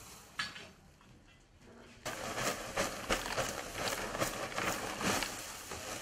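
Dried thyme stalks rustling and crackling as armfuls are pressed down into a stainless steel vessel, a dense run of dry snapping starting about two seconds in.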